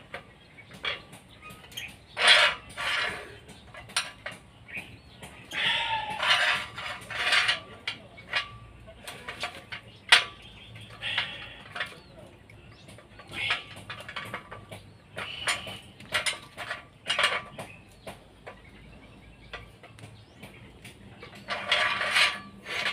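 Steel rebar being bent by hand into tie-beam stirrups with a bending tool: irregular metal clinks and knocks of the bar against the tool, some coming in quick clusters.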